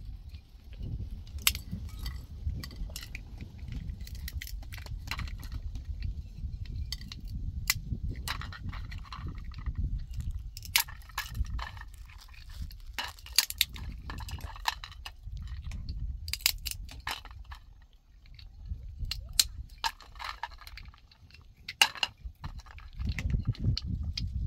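Irregular sharp clinks and knocks of hard objects striking one another, over a steady low rumble.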